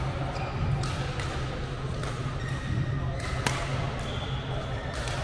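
Badminton rackets hitting shuttlecocks in a rally drill: a string of sharp hits, the loudest about three and a half seconds in, over a steady low hum.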